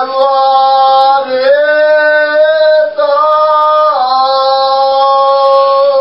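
A boy singing alone, holding a series of long, loud sung notes that step to a new pitch roughly every one to one and a half seconds, the last note held longest.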